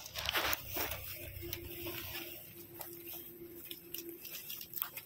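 Faint outdoor location ambience with scattered light clicks and rustles, and a faint steady hum for a couple of seconds in the middle.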